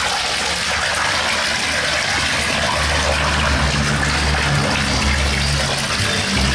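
Steady rush of water running into a koi pond, with a low steady hum joining about three seconds in.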